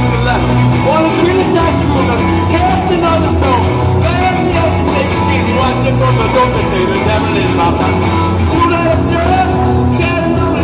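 Live rock band playing loudly with a singer's voice over it, steady and continuous.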